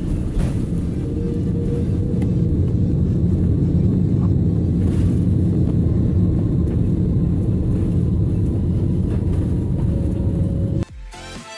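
Steady low rumble of an Airbus A330-300 cabin while the airliner rolls along the runway: engine and wheel noise, heard through the cabin. It cuts off abruptly near the end and electronic music with a beat takes over.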